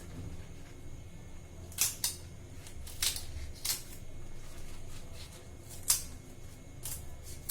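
Taro leaves being trimmed: about six short, sharp cutting clicks at uneven intervals as the thick midribs are cut away, over a low steady hum.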